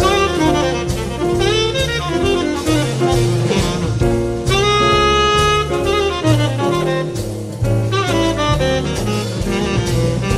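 Live small jazz group playing: a saxophone carries the melody over upright bass and a drum kit, holding one long note about halfway through.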